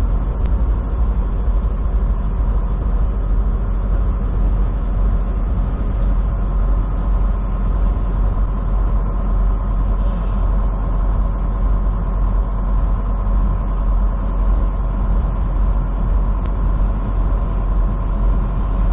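Steady engine drone and road rumble heard inside a semi truck's cab on the move, with a faint high hiss pulsing a couple of times a second.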